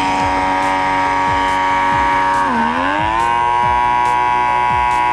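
XN8030 derma suction pore vacuum's motor running with a steady buzzing whine. Its pitch dips briefly about halfway through, then climbs back to where it was.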